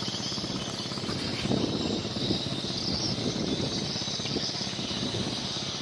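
Steady outdoor ambience: a continuous high chirring over a low rumble, with no distinct events.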